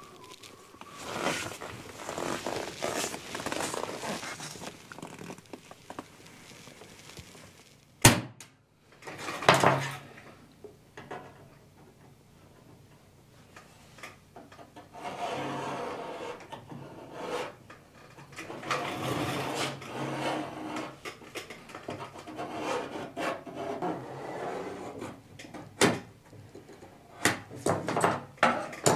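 Hand tools and a thin steel sheet handled on a wooden workbench: scraping, rubbing and light knocks as the sheet is marked out with dividers and a square, with one sharp knock about eight seconds in.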